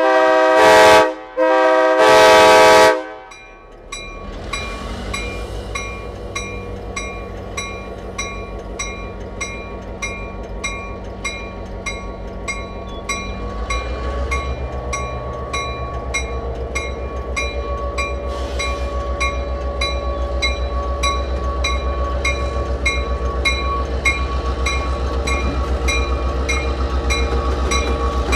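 Diesel-electric locomotive horn sounding two blasts, the second longer. Then the locomotive bell rings steadily at about two to three strokes a second over the diesel engine's drone, which grows louder about halfway through.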